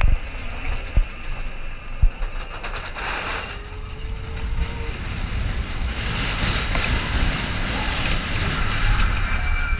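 Steel roller-coaster train rolling along its track: a steady low rumble and rattle, with three sharp knocks in the first two seconds and a rising hiss in the second half.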